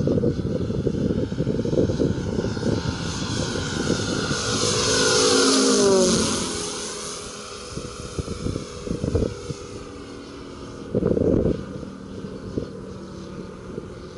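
Radial engine of a CY Models La-7 radio-control warbird, a Moki S180, running in flight as the plane passes overhead. The engine note grows loudest about halfway through, then drops in pitch and fades as the plane moves away. Wind rumbles on the microphone throughout, with a short gust near the end.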